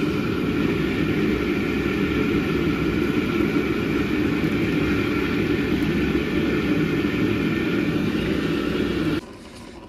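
A motor running steadily, with a few steady tones over its noise, that cuts off suddenly near the end.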